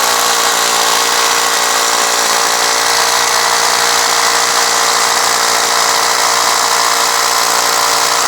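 Cordless brushless concrete drill with its trigger held, the motor and chuck spinning at a steady high speed with an even whirring hum.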